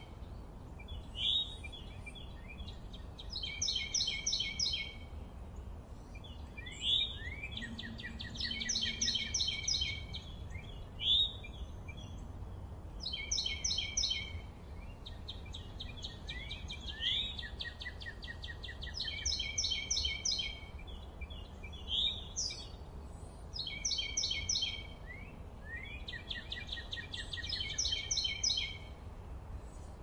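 Birds singing: a short, fast trilled phrase repeated every three to four seconds, with quick rising chirps in between, over a steady low background rumble.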